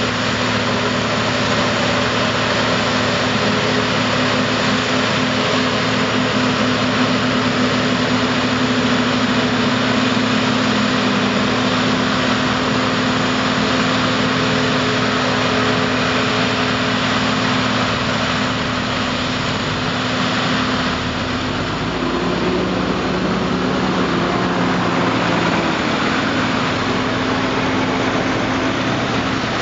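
John Deere 5830 self-propelled forage harvester chopping maize, its engine and chopper running steadily under load, with the tractor pulling the trailer alongside. The engine note shifts about two-thirds of the way through.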